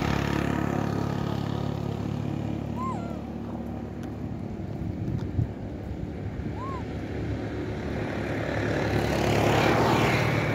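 A motor vehicle engine running steadily, weaker in the middle and growing louder about nine to ten seconds in. Two short high chirps and a brief click sound over it.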